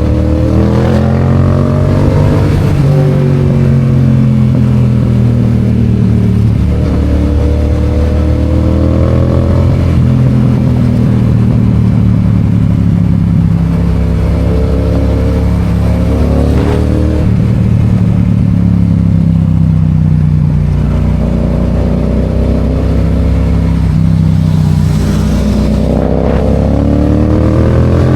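Yamaha FZ-07's parallel-twin engine under way, its pitch climbing and falling back several times as the bike accelerates and eases off.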